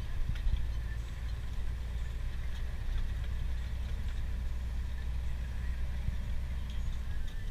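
Scania truck's diesel engine running steadily, a low rumble heard from inside the cab, with faint light rattles.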